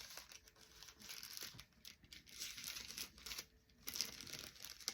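Paper craft pieces rustling and crinkling as they are handled, in irregular bursts with short pauses.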